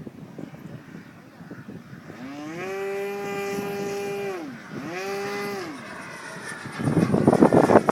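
Model airplane motor throttled up, held at a steady pitch for about two seconds, then throttled back down, followed by a second shorter burst. Near the end comes a loud rush of wind noise.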